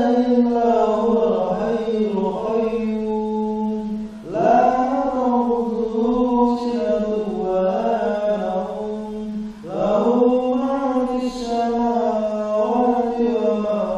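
A single voice chanting in long, drawn-out phrases of about five seconds each, with a short breath between phrases.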